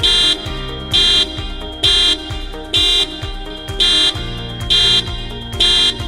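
Aftermarket CAN bus car alarm siren on a Toyota Wish going off in loud, short, high-pitched beeps, about one a second, triggered by the car being opened without the remote. Background music with a bass beat runs underneath.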